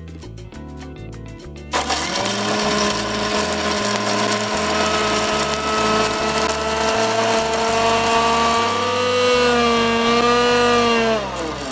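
Thunder Plus electric mixer grinder grinding dry-roasted red chillies and spices into masala powder. It starts suddenly about two seconds in and runs at a steady whine whose pitch creeps up a little, then winds down with a falling pitch as it is switched off near the end.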